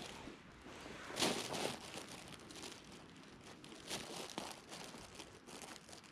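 Dry grass and hay rustling and crackling as rabbits forage and move about in it: irregular soft crunches, with a louder crackling burst about a second in.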